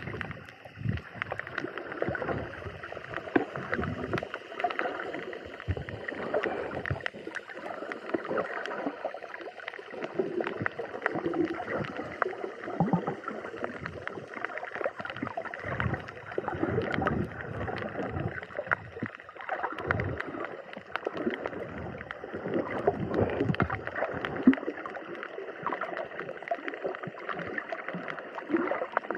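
Water sloshing and gurgling around a snorkeler, in uneven surges.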